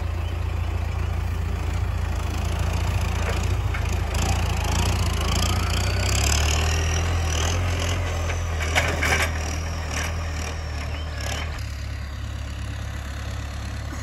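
John Deere tractor's diesel engine running while its front loader sets a round hay bale onto a wooden trailer deck, with the hay crunching and rustling against the boards. A few sharp knocks come about nine seconds in, and the engine hum eases near the end as the tractor backs away.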